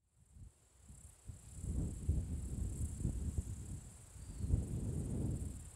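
Wind buffets the microphone in uneven gusts, a low rumble that fades in over the first couple of seconds, over a steady high-pitched chirring of insects such as crickets.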